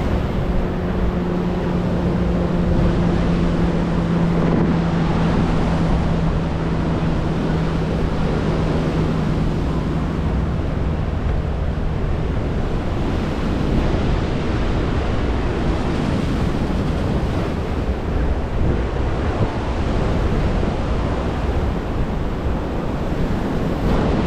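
Strong wind buffeting the microphone over the rush of sea surf. A steady low hum fades out about halfway through.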